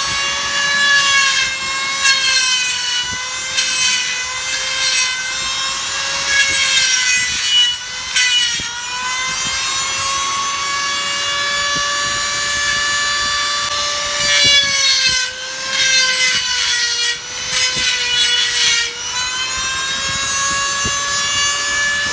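Handheld die grinder running at high speed with a steady high whine. Its pitch dips several times as it is pressed into the steel wheel hub, with a scraping grinding noise over it.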